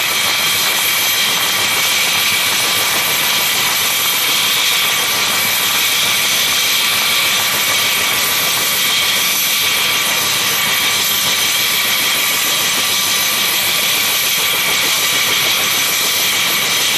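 Turbine helicopter with a two-blade main rotor running on the ground with its rotor turning. A loud, steady rush of rotor and engine noise is overlaid by a constant high turbine whine.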